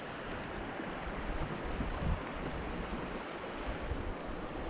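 River current flowing steadily around a kayak, with wind gusting on the microphone in low thumps.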